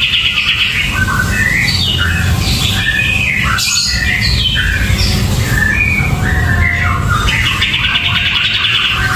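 Caged kapas tembak bulbul singing a fast, varied run of short whistled notes. The song opens with a rapid buzzy trill that ends less than a second in and returns near the end.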